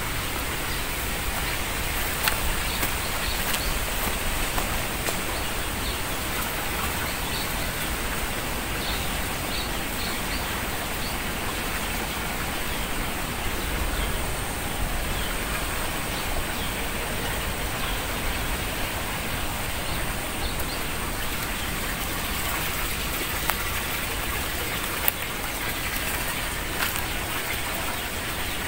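Steady outdoor rushing hiss, water-like, holding an even level throughout, with faint short high chirps now and then.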